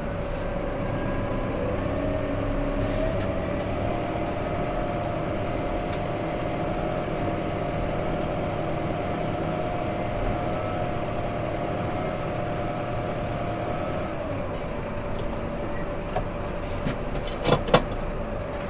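Massey Ferguson tractor engine running as heard from inside the cab. The revs rise a few seconds in, hold steady, and ease back down about 14 seconds in. A few sharp clicks come near the end.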